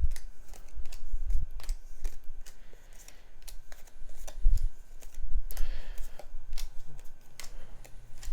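Yu-Gi-Oh trading cards being sorted by hand: a run of light clicks and soft taps as cards are laid down and stacked, with a few brief sliding swishes.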